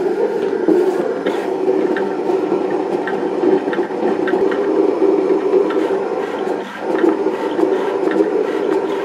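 Monu-cut 24-inch cutting plotter running a cut, its blade carriage driven across the sheet: a steady motor whir with light ticks, dipping briefly about two-thirds of the way through.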